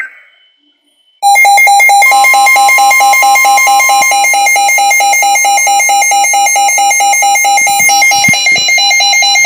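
Midland WR120 weather radio sounding its loud electronic alert alarm, a fast-pulsing tone with a steady higher tone underneath, which starts abruptly about a second in after a short burst of alert data fades out. It signals an incoming severe thunderstorm warning.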